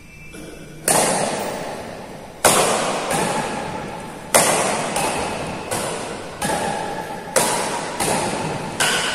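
Badminton rackets striking a shuttlecock in a rally: about ten sharp smacks, half a second to a second and a half apart, each ringing on in the echo of a large indoor hall.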